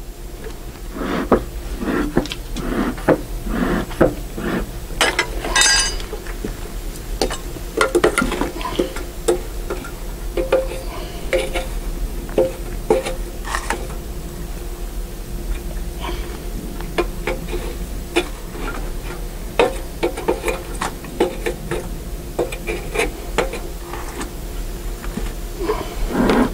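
Crumpled paper rustling as it is pushed into the bell of a stainless steel bee smoker, mixed with light metal clinks and rattles of the smoker's hinged lid being worked shut; an irregular run of small crinkles and taps.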